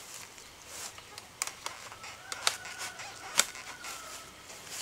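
Harvested bamboo shoots knocking and clicking against each other as they are packed into a woven basket, with light rustling; a few sharp knocks, the two loudest in the second half. A faint drawn-out call sounds in the middle.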